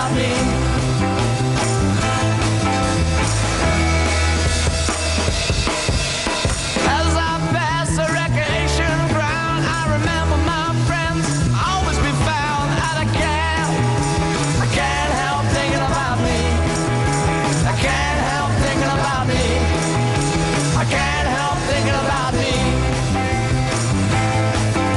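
A mid-1960s pop single playing, with drums and bass throughout and a sung vocal line over them from about a quarter of the way in.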